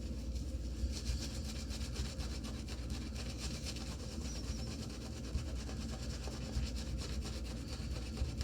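Omega Mixed Midget shaving brush scrubbing and swirling in shaving soap, its bristles rasping rapidly as the lather is worked up. The scrubbing grows louder about a second in.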